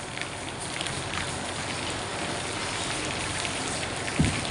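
Whole fish deep-frying in a wok of hot oil, a steady crackling sizzle as a wooden spatula turns it; the fish is already crisping. A short dull knock sounds near the end.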